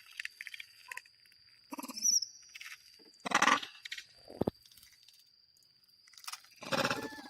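Monkeys calling in short bursts: three louder calls about two seconds apart and a few softer sounds, over a thin steady high-pitched tone.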